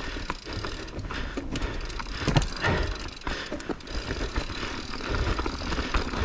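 Mountain bike descending rough trail: the frame and chain rattle and knock over roots and rocks while the rear freehub ticks as the bike coasts.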